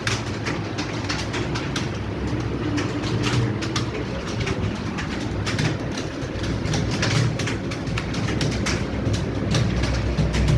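Several computer keyboards clattering at once in fast, irregular keystrokes as candidates type against the clock in a timed typing test, over a low steady hum.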